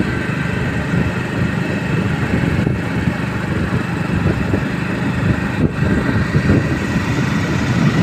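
Motorcycle engine running steadily while riding along, with a rumble of wind on the microphone.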